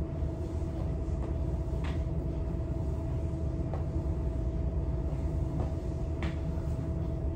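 Steady low hum with a faint even tone running through it, with a few short, soft thuds every couple of seconds from feet and hands landing on the gym floor during burpees.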